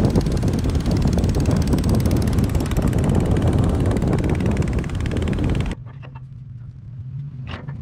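A large engine running hard, a loud, dense, steady noise. Near the end it breaks off suddenly, leaving a low steady hum and one sharp click.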